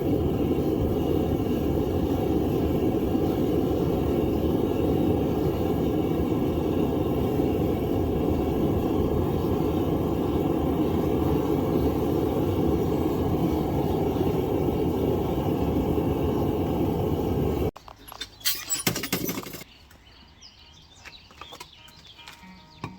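Propane burner of a Devil Forge 10 kg melting furnace running steadily, a dense rushing roar. It cuts off abruptly near the end, followed by a short loud burst of noise and then quieter scattered sounds.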